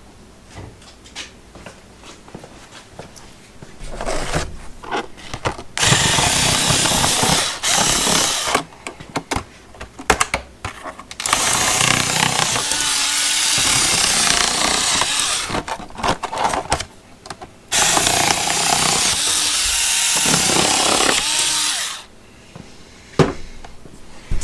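Packaging being ripped open by hand: a few light handling clicks, then several long stretches of loud tearing and crinkling, a few seconds each, that stop shortly before the end.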